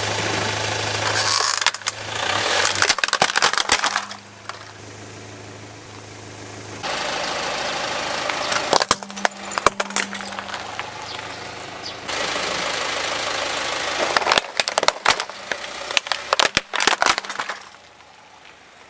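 Car engine running steadily as a tyre rolls over and crushes hard plastic toys, with clusters of sharp cracking and snapping plastic. The crushing comes three times, between short quieter breaks.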